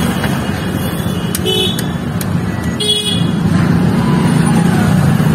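City road traffic running past, a steady rumble, with two short high horn toots about a second and a half and three seconds in.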